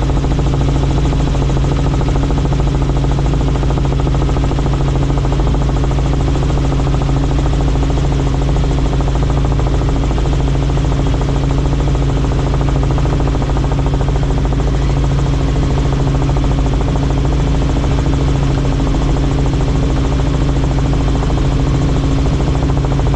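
Helicopter in flight, heard on board: a loud, steady drone from the rotor and engine, with a constant low hum that holds one pitch throughout.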